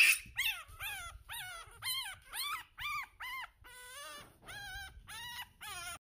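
A Pomeranian puppy whimpering: a steady run of short, high-pitched whines, about two or three a second, each rising and then falling in pitch.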